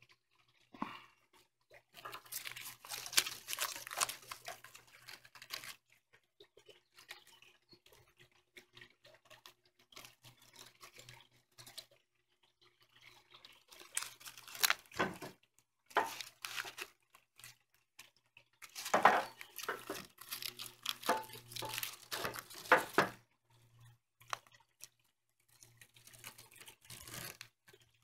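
Dry phragmites reed stalks rustling and crackling as they are handled and bundled, with twine pulled and wrapped around them. It comes in irregular spells with sharp clicks: one about two seconds in, a shorter one midway, and the loudest near the end.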